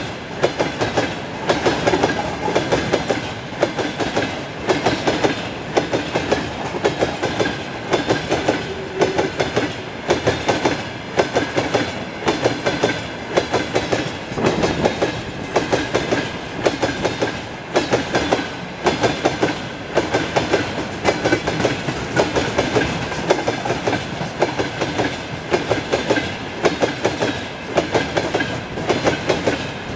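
Loaded rail tank cars passing at close range, their wheels clattering over the rail joints in repeated groups of clicks about every second and a quarter, over a steady rolling rumble.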